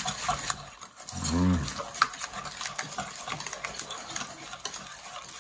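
Wire whisk beating a thick egg and sour cream mixture in a bowl: a steady run of quick, irregular clicks and soft wet scrapes as the wires hit and drag along the bowl.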